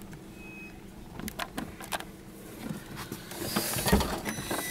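Car engine idling, heard from inside the cabin as a steady low hum, with a few light clicks and a short hiss and thump near the end.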